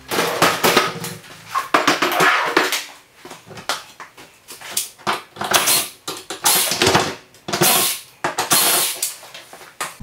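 Rapid, irregular clattering and knocking as a kitchen base cupboard is taken apart, with its doors coming off and a cordless drill-driver in use.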